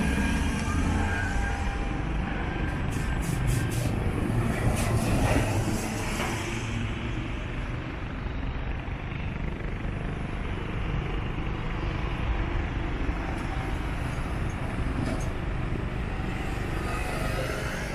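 A steady low engine rumble, a little louder over the first few seconds and then settling to an even level.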